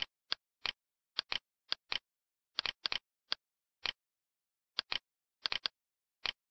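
Computer mouse button clicks: sharp single clicks at irregular intervals, some in quick pairs or triplets, as vertices are selected and dragged in the 3D modelling software.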